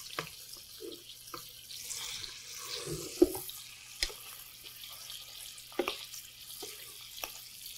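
Butter sizzling gently in a frying pan around halibut fillets, a steady soft hiss, with a few sharp clicks of a metal spoon against the pan as ground ginger and turmeric are stirred in.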